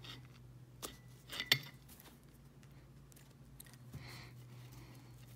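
A few sharp clicks and clinks of pliers working the pin and rollers of a window balance pulley, the loudest about a second and a half in, over a steady low hum.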